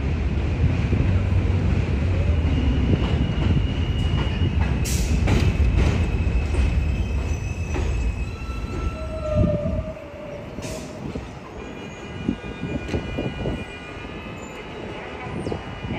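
New York City subway train of R160 cars moving through an elevated station, with a loud steady rumble and brief high wheel squeals. The rumble drops off sharply about ten seconds in, leaving fainter rumble and squeal tones.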